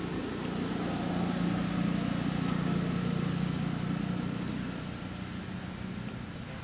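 Low engine hum of a passing vehicle, growing louder over the first couple of seconds and fading after about four.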